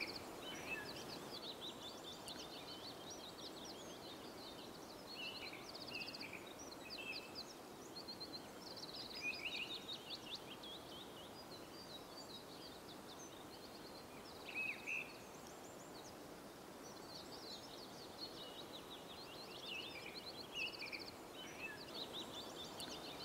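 Faint songbird chorus: several birds chirping and trilling in short phrases, over a low steady background hush.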